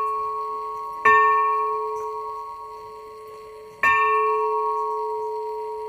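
Bronze peace bell in a wooden frame, struck twice, about a second in and again near four seconds in. Each stroke rings on and slowly fades, over the fading ring of a stroke just before.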